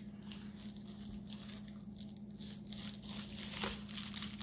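Pocket knife cutting into plastic stretch wrap, with faint crinkling and tearing of the plastic, slightly busier in the second half; the blade is dull and struggles to cut. A steady low hum runs underneath.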